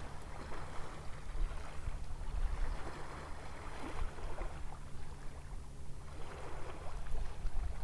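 Steady low hum of a boat's motor idling, under a faint hiss of wind and water.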